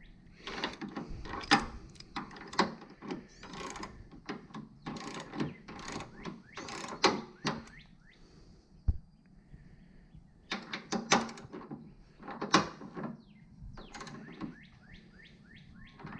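Ratchet wrench clicking and metal tool clatter while turning a suspension nut, in two spells of quick repeated strokes separated by a pause of about three seconds.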